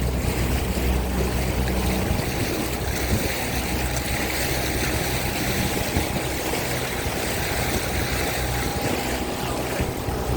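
Boat engine running steadily, a low hum under a rush of water noise.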